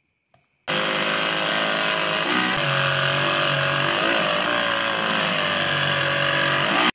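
Homemade cordless mini grinder, an RS380 DC motor run from a single 3.7 V lithium cell, running at speed and cutting into a grey plastic sheet. It starts abruptly about a second in and runs steadily, its whine wavering slightly as the cut loads it.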